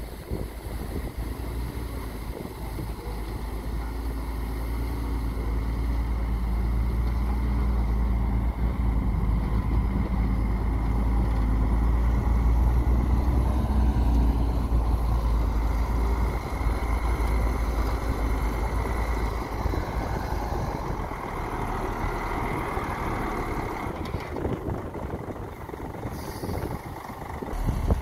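Heavy diesel dump truck, loaded with rock, driving over dirt. The engine gets louder as the truck comes close about halfway through, then eases off. A short hiss comes near the end.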